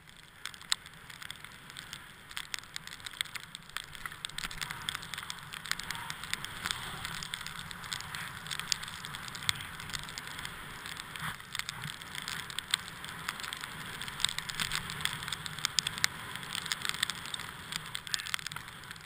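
Skis running through soft snow: a steady hiss with many small crackling clicks.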